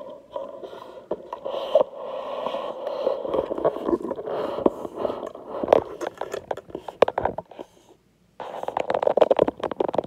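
Handling noise: scraping, knocks and rustles as the camera and items on the table are moved about. It cuts out briefly near the end, then comes back as a denser run of clicks and scrapes.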